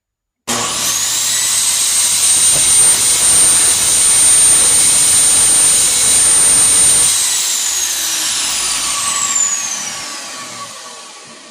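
Craftsman 8-1/4-inch, 13-amp table saw started up: the motor and blade spin up quickly to a loud, steady high whine, run for about six seconds, then coast down with falling pitch and fade out.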